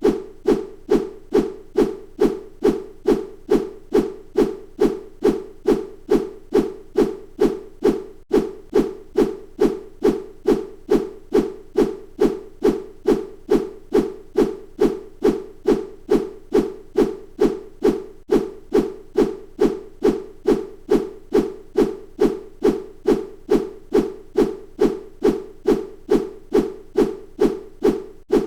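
A bamboo stick swished through the air over and over, making short whooshes with a low hum to them, about two a second at an even pace.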